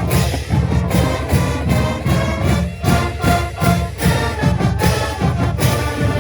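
High school marching band playing its fight song: brass carrying the tune over a steady drum beat.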